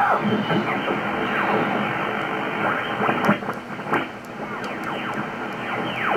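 ICOM IC-7700 HF transceiver's receiver audio as the main dial is turned across the 80-metre amateur band: steady band hiss, with stations sliding down in pitch one after another as they are tuned past.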